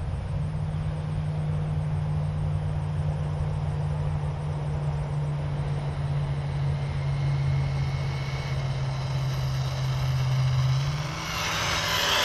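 A steady low hum, then about eleven seconds in the ARRMA Typhon GT RC car's brushless motor whine and tyre noise rise as it drives up, its pitch falling as it slows to a stop.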